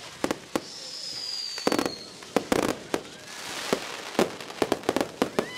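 Fireworks going off in a quick run of sharp bangs and cracks, with a whistle sliding down in pitch about a second in and a crackling hiss around the middle.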